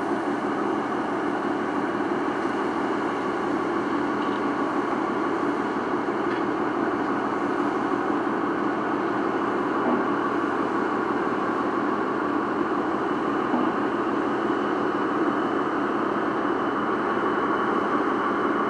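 Bonito fishing boat's engine running steadily, a constant drone with no change in speed.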